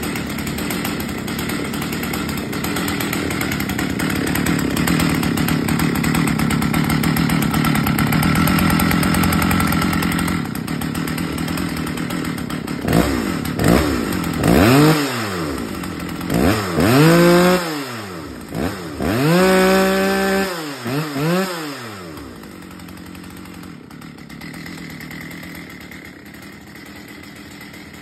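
Stihl 084 AV two-stroke chainsaw running steadily, then revved in about five quick blips of the throttle, one held a little longer, before it drops back to a quieter idle.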